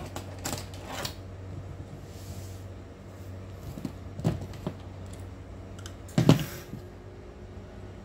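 Scattered clicks and light knocks from a fiber stripper and drop cable being picked up and handled on a cutting mat. The loudest is a quick double knock about six seconds in.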